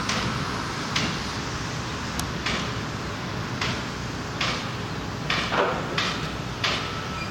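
Footsteps of someone walking, a short scuff or crunch about once a second, over a steady low background rumble.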